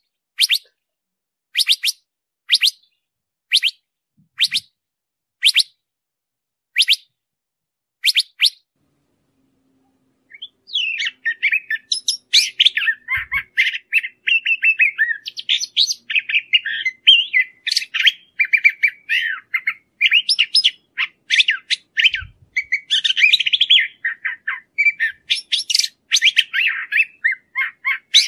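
Curve-billed thrasher calling and singing. About nine sharp calls come roughly once a second, then after a short pause a long, fast, varied warbling song runs on.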